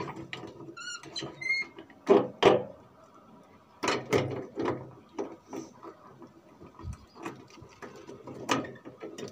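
Door being locked with a key: a series of metal clicks, knocks and rattles from the lock and the corrugated sheet-metal door.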